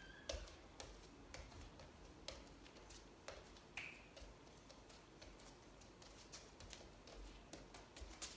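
Near silence with faint, sharp taps about twice a second from bare feet stepping on a wooden floor during bachata steps, and a brief squeak about four seconds in.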